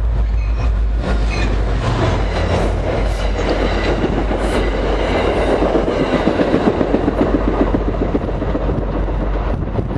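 New Jersey Transit diesel commuter train passing close by: a heavy rumble as it arrives, then wheels clattering over the rail joints in a quick rhythm, loudest past the middle, easing as the train goes by.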